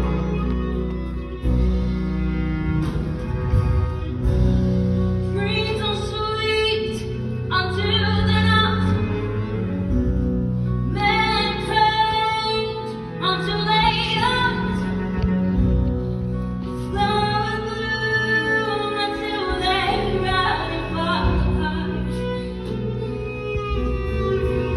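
Live stage-musical song: the pit band plays sustained low notes with bowed strings. About five seconds in, a high voice begins singing long held notes with vibrato, in phrases separated by short breaks.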